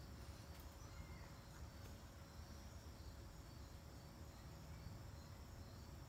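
Faint, steady high-pitched insect chorus of several unbroken tones, over a low background rumble.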